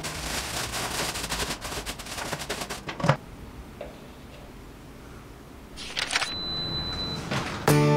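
A thin plastic bin liner crackles and rustles as it is fitted into a stainless-steel pedal bin, ending about three seconds in with a sharp knock. Near the end comes a short swish and a steady high beep.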